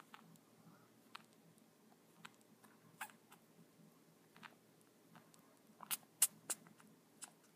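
Guinea pig grooming and moving about on a blanket: faint, scattered small clicks and ticks, with a quick run of three louder clicks about six seconds in.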